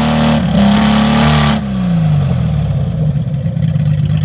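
An engine held at high revs, then dropping about a second and a half in to a lower, rougher steady run.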